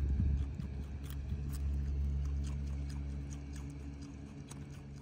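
Alpine marmot chewing a carrot held in its paws, with irregular crisp crunches, over a steady low hum. The sound fades out near the end.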